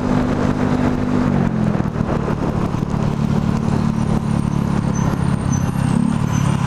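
Motorcycle engine running steadily while riding through traffic, with wind rushing past; the engine note dips a little about a second and a half in.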